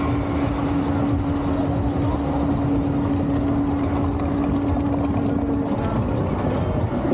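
Roller coaster train climbing its chain lift hill: a steady mechanical hum over rumbling noise. The hum stops about six seconds in as the train reaches the top of the lift.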